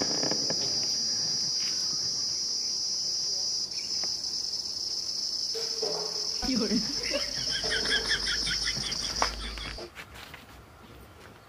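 Insects keep up a steady, high-pitched drone that cuts off suddenly about ten seconds in.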